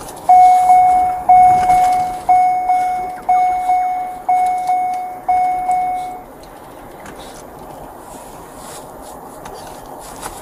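Electronic warning chime, such as a patrol car's seatbelt or door chime: one steady tone struck six times about once a second, each ringing out and fading before the next, then it stops about six seconds in.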